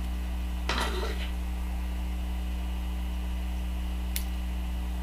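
Steady electrical mains hum, with a short soft noise about a second in and a faint tick near the end, then a sharp knock right at the very end.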